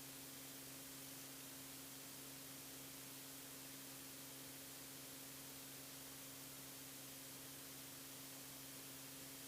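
Near silence: a faint steady hiss with a low steady hum underneath, the background noise of a cockpit audio feed.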